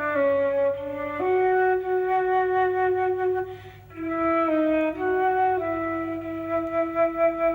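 Recorded music played back through a 300B valve amplifier and loudspeakers: a flute plays a slow melody of long held notes, with a short breath-like break about three and a half seconds in.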